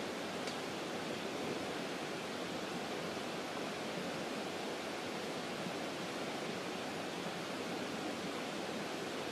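Steady, even rush of Red Creek's flowing water, with one faint tick about half a second in.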